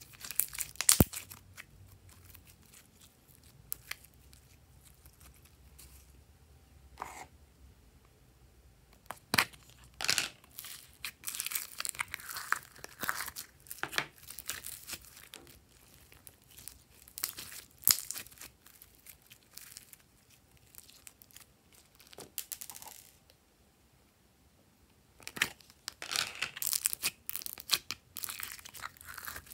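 Hands squeezing and pulling glossy slime: sticky crackling and popping in irregular bursts with quiet gaps between. Near the end it comes with the crinkle of a thin plastic tub as pink slime is pulled out of it.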